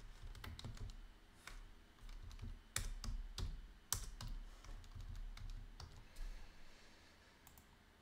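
Typing on a computer keyboard: irregular key clicks that stop near the end.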